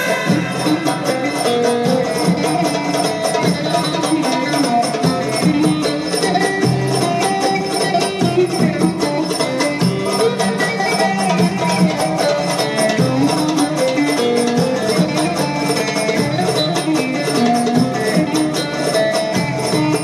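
Instrumental Turkish folk tune played on a plucked lute, with quick, dense strokes and a running melody.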